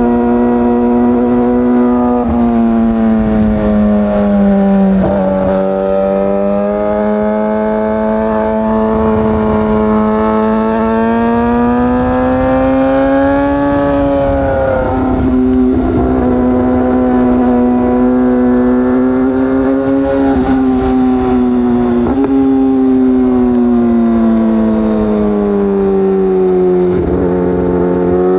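Yamaha YZF-R6 inline-four sport bike engine through an Akrapovic short end can, running hard under a rider: its pitch sinks and climbs slowly, with a few brief breaks where the note drops at shifts or throttle changes.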